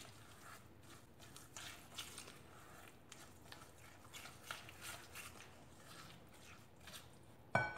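Icing sugar and melted butter being stirred together in a bowl: faint, irregular soft scraping and squishing. Near the end a sudden, much louder sound cuts in.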